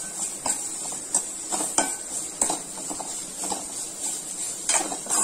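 Metal spoon stirring ridge gourd peel in a pan of hot oil: short clinks and scrapes against the pan about twice a second, over a light steady sizzle.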